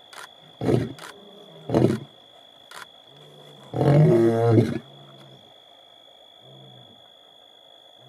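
Male lion roaring: short deep grunts about a second apart, then one longer, louder roar about four seconds in, trailing off into a few soft, low grunts.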